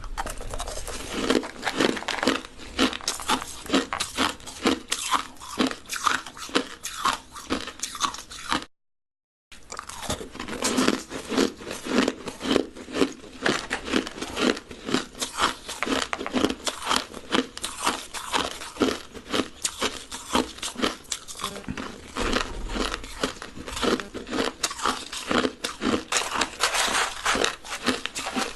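Close-miked biting and chewing of crushed ice: rapid, continuous crunches, with a brief silent break about nine seconds in.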